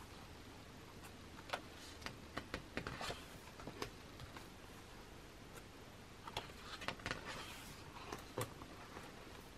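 Glossy pages of a thick photobook being turned and smoothed by hand: light paper rustles and small ticks in two spells, one starting about a second and a half in and another after the middle.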